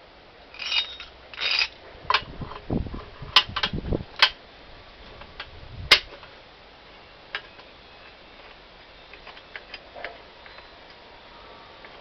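Metal tools and suspension parts being handled: two short scraping rattles, a pair of dull knocks and several sharp clicks and clanks in the first six seconds, then a few scattered clicks.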